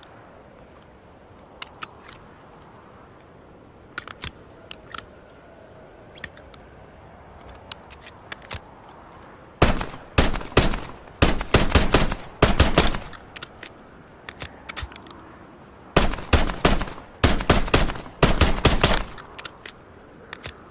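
Makarov PM pistol firing (a gunshot sound effect): a few scattered lighter sharp cracks, then about halfway through two strings of rapid shots fired about four a second, separated by a pause of about three seconds.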